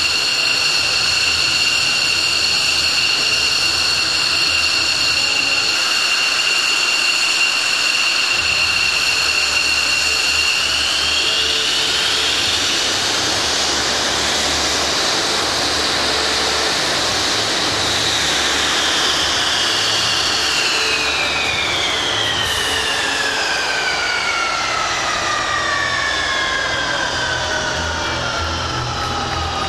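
Jet engines of the Thunderbirds' F-16 fighters running on the ramp with a steady high whine. The whine rises in pitch about a third of the way in as the engines are run up, then from about two-thirds in winds down in long falling whines as the engines spool down at shutdown.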